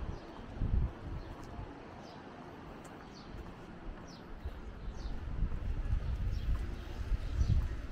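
Small birds chirping: short, high, downward-sliding chirps repeated every half second or so, over a low, gusting rumble that swells about a second in and again near the end.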